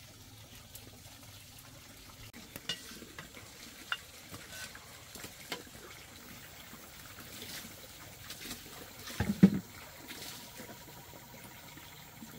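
Rice being stirred with a long bamboo stick in a metal pot over a wood fire: scattered light ticks and scrapes, with one louder knock about nine seconds in.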